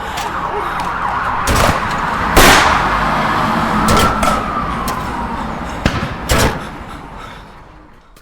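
Designed gunfight sound effect: scattered gunshots, the loudest about two and a half seconds in and a pair about six seconds in, over a slowly wailing siren and rumbling chaos. The whole mix fades out near the end.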